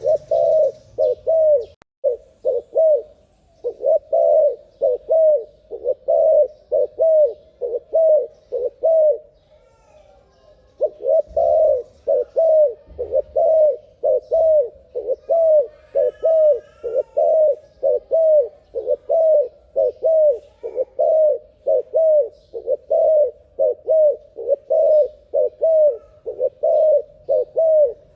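Turtle dove cooing in a rapid, steady series, about two short coos a second, each note dropping in pitch, with a break of about a second and a half near the middle. Faint higher chirps from another bird come in about halfway through.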